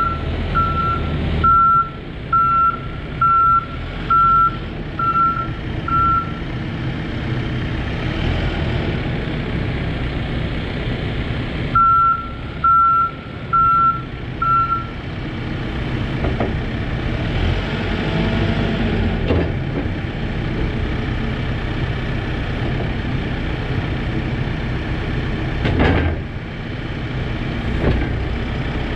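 Case 590 Super N loader backhoe's diesel engine running while the machine is worked, its backup alarm beeping about once a second for the first six seconds and again four times around halfway, as it reverses. A sharp clunk comes near the end.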